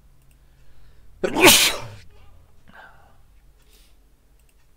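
A person sneezing once, loudly, about a second and a half in.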